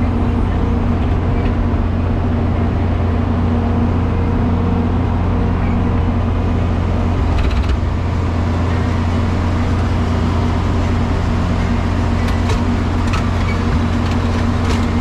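John Deere tractor engine running steadily at a constant speed, with a few faint clicks in the second half.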